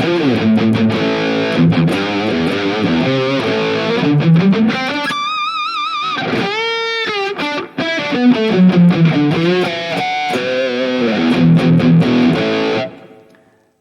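Electric guitar through the NUX MG-30 modeler's high-gain preset (Steel Singer drive into a VH4 amp model and Marshall 1960 cabinet) with its EQ switched off: distorted riffing with a couple of long notes shaken with vibrato midway. The playing stops near the end and the last notes die away.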